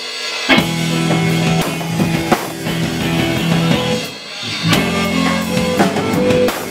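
Live rock band playing with electric guitar and drum kit. The full band drops out briefly twice, at the start and again about four seconds in, and crashes back in on a drum hit each time.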